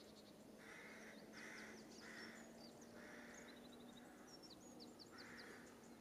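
Faint dawn birdsong: a crow caws harshly about six times, roughly once a second, while small songbirds chirp thinly in the background.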